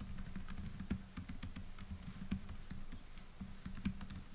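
Laptop keyboard being typed on: a quick, irregular run of light key clicks, over a low steady hum.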